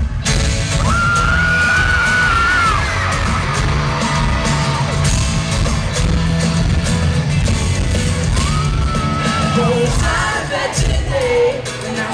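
Live pop band playing amplified in an arena, with a crowd screaming and cheering over it; a high voice is held twice, about a second in and again near nine seconds.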